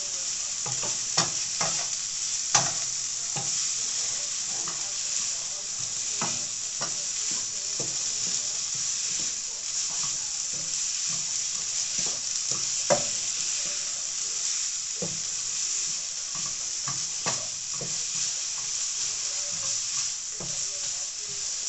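Food frying in a pan, sizzling steadily, with a utensil clicking and knocking against the pan now and then as it is stirred.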